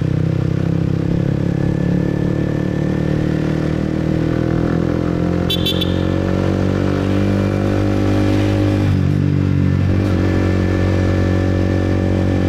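Motorbike engine running as it rides, its pitch climbing slowly with speed, dropping off about nine seconds in and picking up again. A brief high beep sounds about five and a half seconds in.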